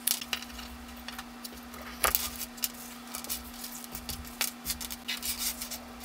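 Gloved hands handling wire leads and small metal crimp terminals on a countertop: scattered light clicks and rustling, with a sharper knock about two seconds in.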